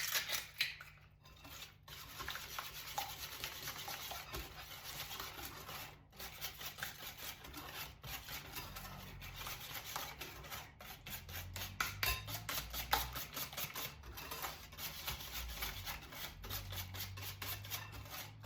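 Wire whisk beating butter, sugar and eggs in a bowl with rapid, steady strokes, working air into the batter.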